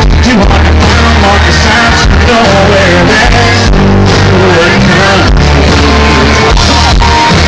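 Live country band at full volume, with drum hits, a strong bass line and a male lead vocal, heard from within the audience.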